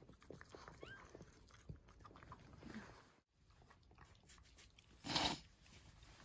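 Faint high squeaks from a newborn Cavalier King Charles Spaniel puppy, with soft wet licking and snuffling from the mother dog, and a short loud rustle about five seconds in.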